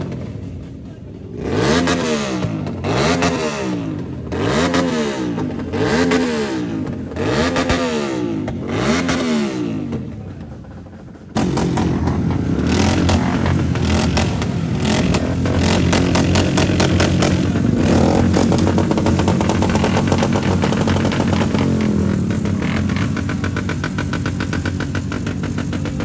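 Sport motorcycle engine revved over and over, about six blips with the pitch rising and falling each time. After an abrupt cut, motorcycle engines run steadily with a rapid even beat.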